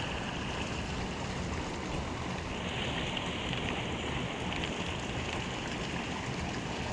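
Steady rush of storm runoff pouring into a pond, a constant hiss of moving water that grows a little stronger about two and a half seconds in.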